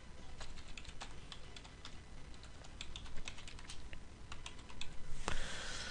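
Typing on a computer keyboard: quiet, irregular key clicks as a word is typed out.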